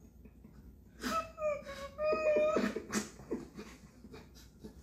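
A man laughing hard and uncontrollably: high-pitched, breathy laughs in two loud bursts, about one and two seconds in, with quieter wheezing laughter around them.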